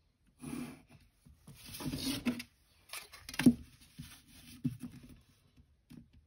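Pencil and plastic set square rubbing and sliding on paper in short strokes, with a sharp knock about three and a half seconds in and a few lighter taps after it.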